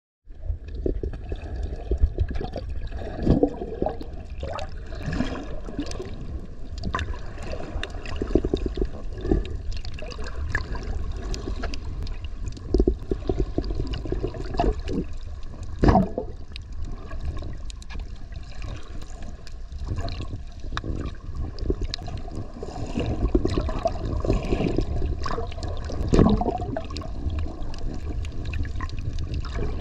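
Water heard through an underwater camera as it moves over a reef: a steady low rumble with uneven gurgling and sloshing and scattered sharp clicks. The sound starts suddenly just after the opening.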